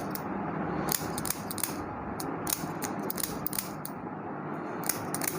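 A quick, irregular series of sharp clicks over a low rustling noise, fewer for a moment near the end.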